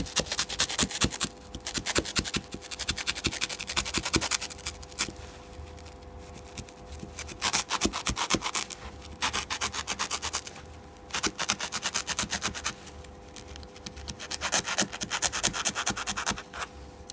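A box-cutter blade sawing through a kitchen dish sponge in quick short strokes, a scratchy rasp. It comes in about five runs with brief pauses as the cut is worked along the outline.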